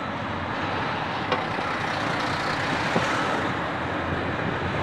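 Steady motorway traffic noise, a continuous rush of tyres and engines from passing vehicles, with a couple of faint clicks.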